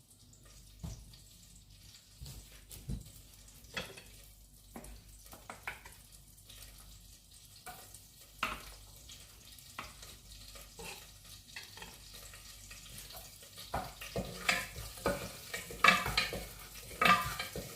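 Food frying in oil in a pan, with a utensil stirring and scraping against it in scattered clicks; the stirring grows louder and busier near the end.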